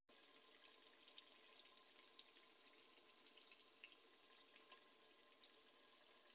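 Near silence with a few faint, scattered crackles from the aloo bhujiya still sizzling in the hot clay pot.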